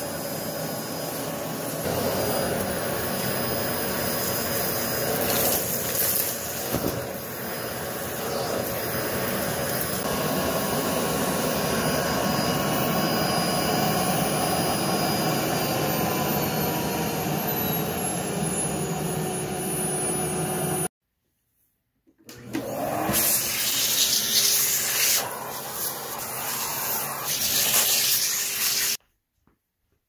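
Aspiron CA006 canister vacuum cleaner running on carpet, a steady rushing noise with a motor whine. About 16 seconds in the whine falls in pitch as the power dial on the canister is turned. It cuts off suddenly about two-thirds through, starts up again with a rising whine and runs a few more seconds before stopping abruptly.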